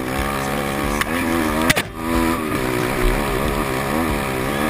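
A 150 cc pit bike's engine is being ridden hard, its note rising and falling with the throttle. A sharp knock comes a little under two seconds in, followed by a brief dip in the engine note before it picks up again.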